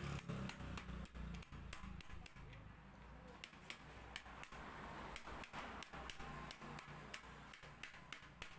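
A run of irregular light clicks and taps, several a second, over a low steady hum.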